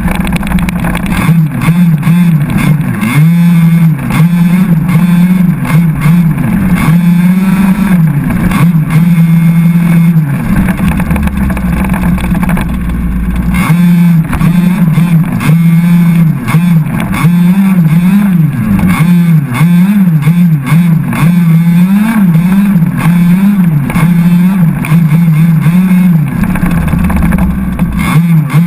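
Small two-stroke petrol engine of an HPI Baja 5SC 1/5-scale RC truck, heard from onboard while driving, revving up and down again and again as the throttle is worked.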